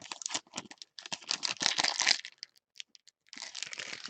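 Trading-card pack wrapper being torn open and crinkled, a dense run of crackles for about two seconds, then another burst of crinkling near the end.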